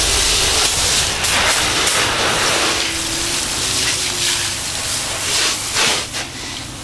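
Garden hose spray nozzle hissing, with water splashing onto a car's body panels and front wheel. The spray cuts off near the end.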